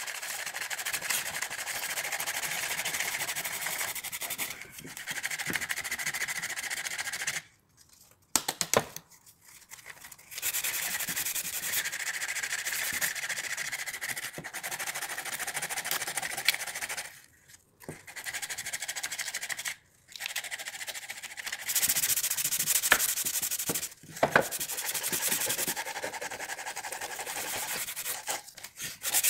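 Hand sanding of weathered wooden lantern parts with sandpaper: long runs of rasping strokes that stop briefly a few times.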